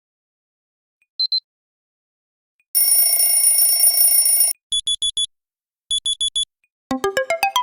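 Electronic phone ringtones and alert tones from an itel A56, played one after another: a short double beep, a loud buzzing alarm tone lasting about two seconds, two sets of four quick beeps, then a fast synthesized ringtone melody starting near the end.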